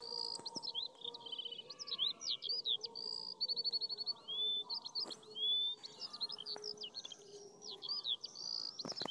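Small birds chirping busily in quick high notes, rising and falling sweeps and short trills, over a faint steady hum. A couple of sharp knocks come near the end.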